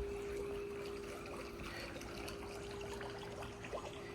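Faint water trickling and dripping, with a steady hum held under it.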